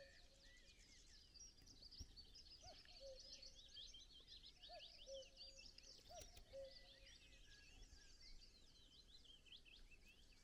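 Faint rural birdsong: a chorus of small songbirds with many quick, high chirps and trills. Under it a distant common cuckoo calls its two-note "cuck-oo" several times, the second note lower.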